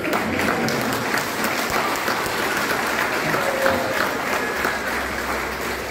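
A congregation applauding steadily, with a few voices mixed in among the clapping.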